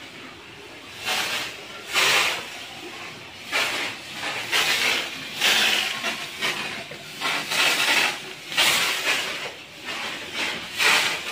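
Handheld mini fogging machine spraying mosquito fog in repeated hissing puffs, about one a second.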